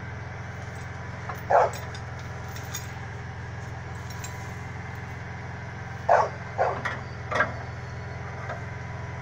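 A vehicle engine idling steadily, with a dog barking: once about a second and a half in, then three or four times in quick succession near the end.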